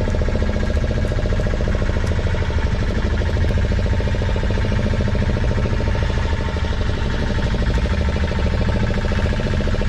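A fishing boat's engine running steadily, with a fast, even pulse.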